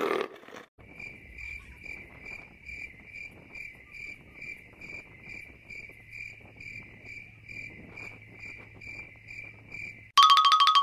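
Cricket chirping steadily, about three even chirps a second. Near the end, loud electronic music with a fast pulsing tone cuts in abruptly.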